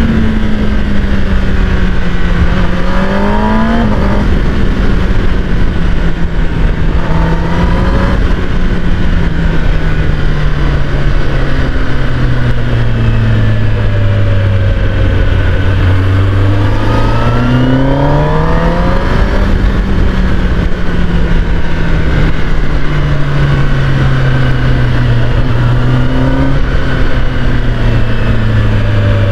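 Kawasaki ZX10R's inline-four engine under way, revving up and dropping back several times as it shifts through the gears. Its pitch sinks low, climbs in a long steady rise about two thirds of the way through, then eases off in steps, over a steady rush of road and wind noise.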